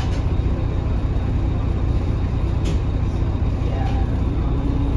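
Steady low rumble inside the passenger cabin of a Mercedes-Benz OH1830LE bus, from its OM926 diesel engine and running gear.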